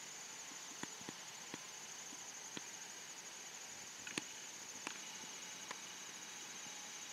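Insects chirring in a steady, high-pitched pulsing chorus, with a handful of short sharp clicks scattered through it, the loudest about four seconds in.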